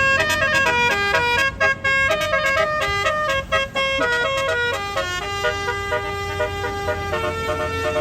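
Tour bus telolet horn, a multi-tone air horn, playing a quick stepping melody that slows into longer held notes in the second half, over a low rumble.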